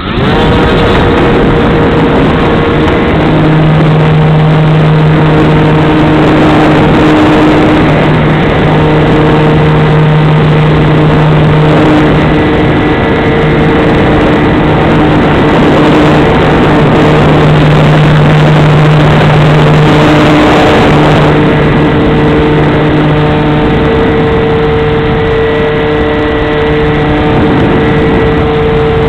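Large RC airplane's motor and propeller, heard close up from a wing-mounted camera, throttled up at the start and then running steadily loud through takeoff and climb, with a constant hum and heavy rushing wind noise.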